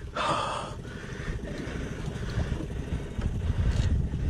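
Boat motor running steadily with a fine, even pulsing, under a fluttering low rumble of wind on the microphone. A short rush of noise comes right at the start.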